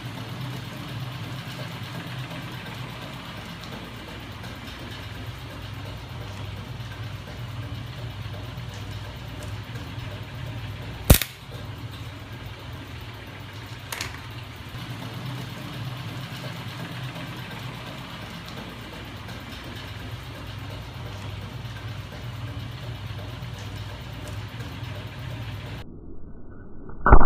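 Steady low mechanical hum of a small electric motor driving a spinning magnet-crankshaft rig, with a sharp click about eleven seconds in and a fainter one a few seconds later. Near the very end comes a short, very loud crack as a screwdriver shorts across the terminals of a charged car-audio capacitor.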